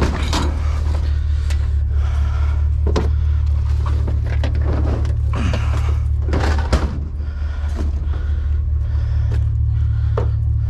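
Vehicle running with a steady low engine and road drone, with intermittent rattles and knocks over it.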